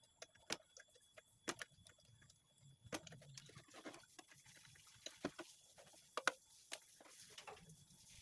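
Scattered light clicks and taps at irregular intervals, small objects being handled on a hard surface, with no machine running.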